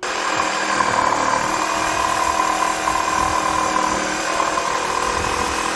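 Power drill running steadily under load, a continuous motor whine that starts abruptly and holds without a break.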